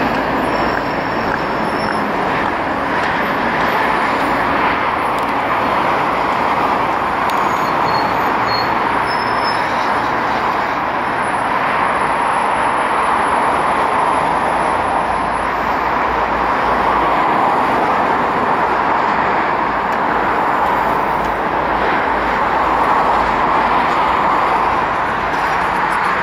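Boeing 737 jet engines running, a steady rushing noise with a slight swell midway and again near the end.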